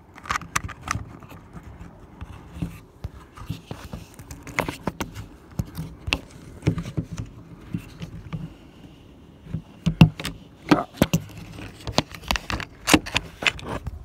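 Irregular clicks, knocks and scrapes of a keyless-entry RV door lock being handled and worked into the door by hand, with the louder knocks between about ten and thirteen seconds in.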